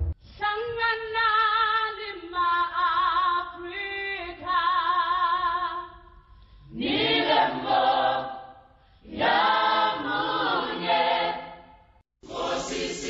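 A choir singing a cappella: long held notes in harmony with vibrato, in three phrases with short breaks between them. It cuts off about twelve seconds in.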